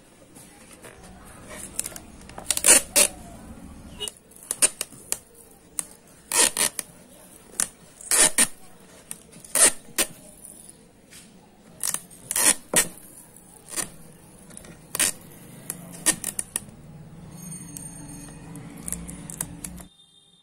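A plastic planter pot is handled while clear sticky tape is pressed onto it, giving irregular sharp clicks and taps a second or two apart.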